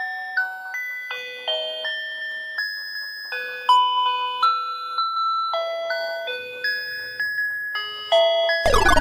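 A tinny electronic tune, one beeping note at a time, like a toy's sound chip. A loud falling buzzy sweep comes near the end.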